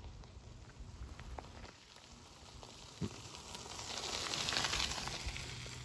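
Leaves and branches of a berry bush rustling and crackling as a black bear pulls at them to feed, with scattered twig snaps. The rustling swells to its loudest about four to five seconds in.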